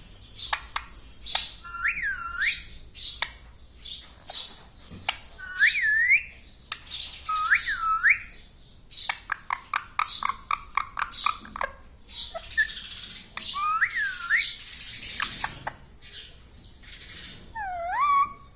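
Pet parrot calling: harsh squawks and screeches mixed with several short whistled calls that dip and rise in pitch, with a quick run of clicks about halfway through.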